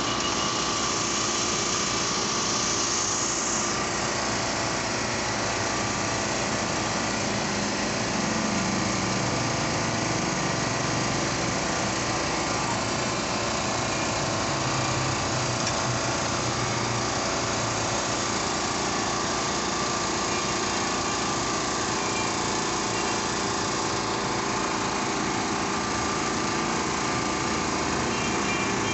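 A machine running steadily: a continuous drone with several steady tones that holds at the same level throughout.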